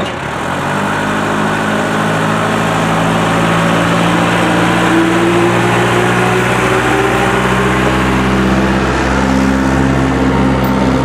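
Yard tractor's engine working under load as it tows a loaded container trailer past close by, coming up about half a second in and rising a little in pitch through the middle.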